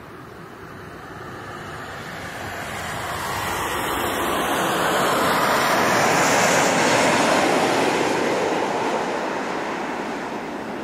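Airbus A321 jet engines passing by on takeoff: a steady jet noise that swells to a peak about seven seconds in, shifting in pitch as it goes past, then begins to fade.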